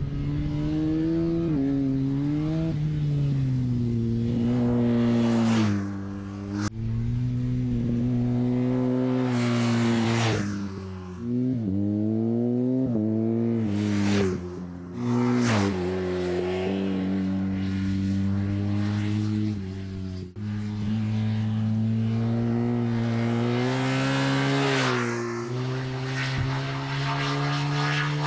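BMW HP2 Sport's 1170 cc boxer twin running hard on track, its pitch rising and falling as the rider works through the revs and gears. Several brief rushes of noise come as the bike sweeps past. The sound breaks off abruptly twice, about 7 and 20 seconds in.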